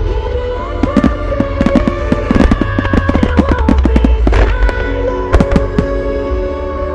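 Fireworks shells bursting in rapid volleys of sharp bangs and crackle, thickest in the first half and again about five seconds in, over the show's music with long held notes.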